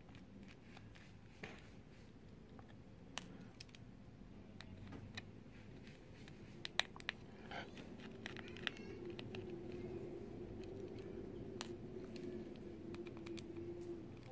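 Small Phillips screwdriver working the tiny screws inside a smartphone: faint scattered clicks and scrapes of the metal tip on the screws and the phone's frame. A faint steady hum comes in about halfway through.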